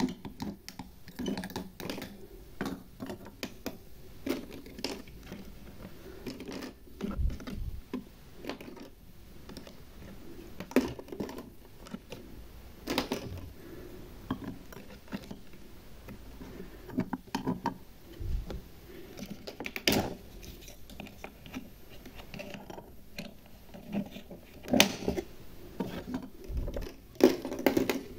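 Plastic toy kitchen utensils, dishes and a toy pot and lid being handled, stirred and hung on rack hooks: light, irregular plastic clicks and clacks, with a few sharper knocks.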